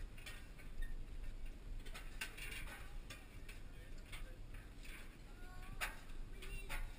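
Irregular light clicks and taps over a steady low rumble, with faint distant voices of a crowd on a metal cliffside stairway.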